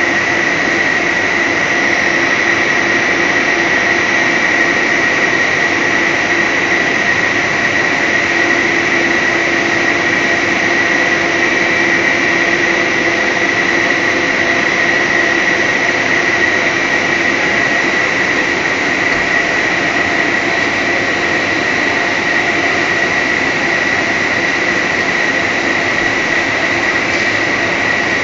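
Steady factory din from a running HDPE/PP tape extrusion line, an even machine noise with a steady high whine and a lower hum over it.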